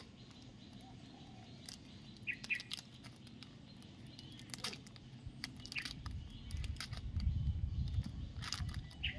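Plastic snack wrapper crinkling and crackling in sharp scattered clicks as a macaque bites and pulls at it, with a few short bird chirps. A low rumble grows louder from about six seconds in.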